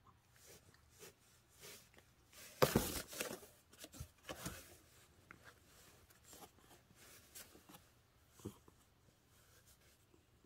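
Scratching and rustling against a cardboard box as a cat scuffles with a hand inside it, with the loudest scuffle about three seconds in and lighter scattered scratches after.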